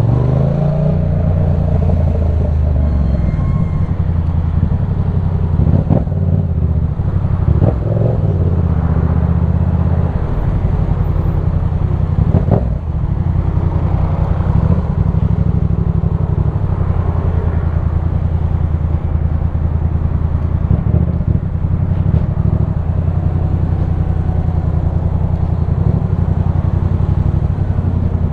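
2015 Yamaha MT-07's 689 cc parallel-twin engine through a LeoVince One Evo full exhaust system, running while the bike is ridden. The engine note holds fairly steady, with a few short, sharp changes in throttle.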